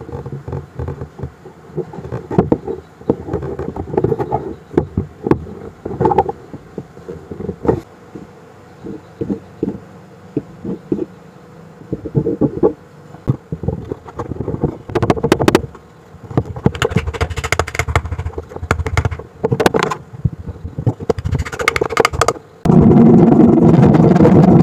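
Wood pieces handled and fitted into a joint, with scattered small knocks, taps and scrapes. Near the end a handsaw starts cutting through the protruding wood pieces with a loud, steady rasp.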